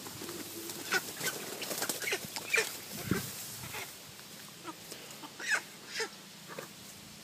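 Chicken clucking and squawking in short scattered calls, several over a few seconds, the loudest about two and a half and five and a half seconds in.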